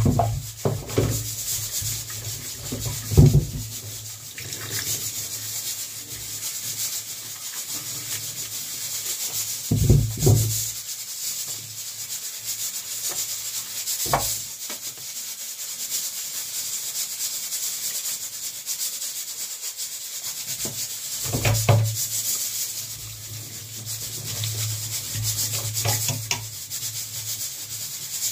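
Hands washing pumpkin pieces in a stainless steel kitchen sink, with water splashing and dripping and a steady hiss. Several dull knocks of pot and pieces against the sink are the loudest sounds, about three seconds, ten seconds and twenty-one seconds in.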